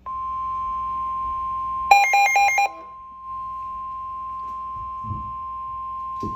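Weather radio 1050 Hz warning alarm tone: one steady, loud, high tone, the signal that a weather warning is about to be read. About two seconds in, a short burst of rapid beeps sounds over it, and the tone dips briefly before resuming.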